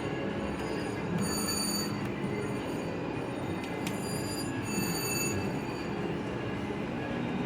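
Casino floor din: a steady wash of crowd and machine noise, with electronic slot-machine chimes ringing in short high-pitched stretches several times, and a single sharp click a little before the middle.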